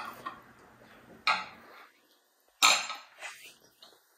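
Metal forks clicking and scraping against plates, a few separate short clinks, the sharpest about two and a half seconds in.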